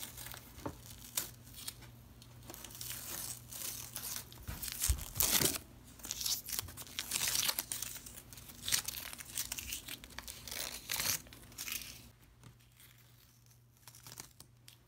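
Hands rubbing and scratching across the stiff, dried fabric-paint surface of a canvas apron: a run of irregular scratchy, crinkly strokes, loudest about five seconds in and dying down near the end.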